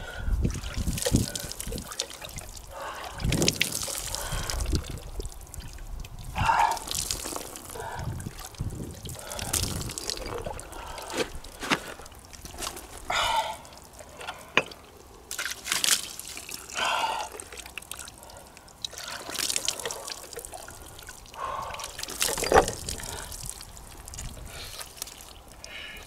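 Water trickling and splashing in short, irregular spells.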